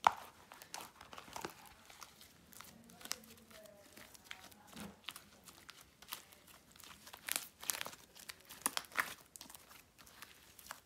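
Homemade slime with pom-poms mixed in being kneaded, squeezed and stretched by hand, making irregular small clicks, crackles and squishes.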